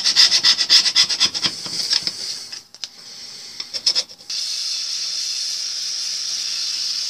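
Rapid scraping strokes of a flat steel scraper on the corroded iron case of a door lock, taking rust and flaking paint off down to bare metal. About four seconds in, a cordless drill with a wire brush starts and runs steadily against the metal with an even hiss.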